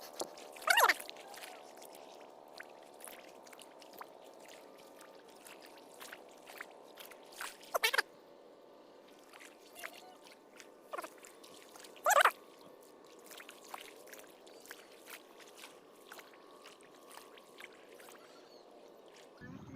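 Three short, loud animal calls, one about a second in, one near eight seconds and one near twelve seconds, each sweeping downward. Under them is a faint steady drone with scattered ticks.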